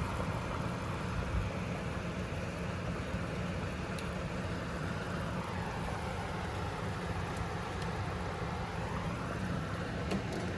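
Steady rushing noise of a kitchen range hood fan running over the stove.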